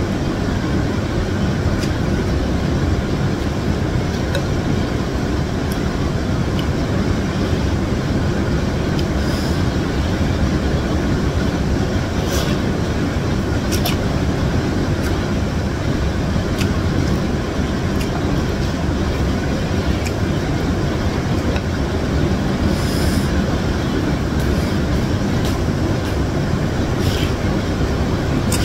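Instant noodles being slurped and eaten, with a few short sharp slurps or utensil clicks now and then, over a loud steady low rumble that runs throughout.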